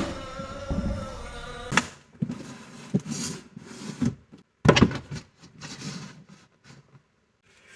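Background music that cuts off sharply about two seconds in, followed by a series of scattered knocks and clicks that thin out toward the end.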